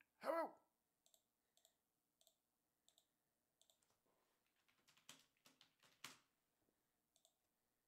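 Faint computer-keyboard typing, a short quick run of key clicks about five seconds in, with scattered soft single clicks before it.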